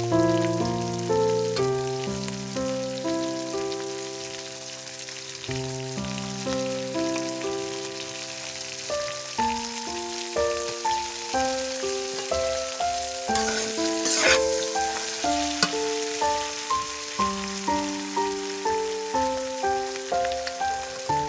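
Instrumental background music with a steady beat over food sizzling as it fries in a wok. About two-thirds of the way in there is a brief scrape of the metal spatula against the pan.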